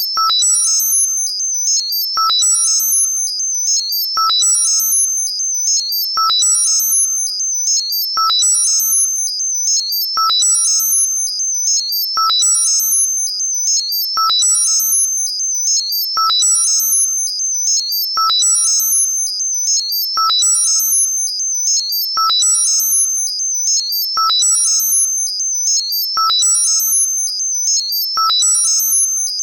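Modulated high-pitched synthesized tinnitus-masking sound: a steady high tone with fast flickering high notes above it, pulsed by a click and a short ringing ping about every two seconds.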